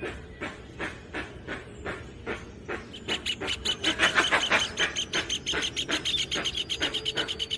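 Birds calling in a forest: a repeated series of short harsh calls, two or three a second, that thickens about three seconds in into a louder, denser chorus of rapid high calls.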